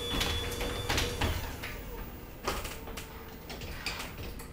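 Chamberlain HD220 1/2 hp chain-drive garage door opener running quietly as it lowers the door, slowing down and stopping about a second in as the door closes. A few knocks follow.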